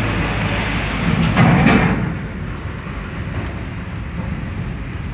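Road and engine noise heard inside a car driving through a muddy, waterlogged street: a steady low rumble with tyre hiss. About a second and a half in, a louder rush rises for about half a second, then falls away.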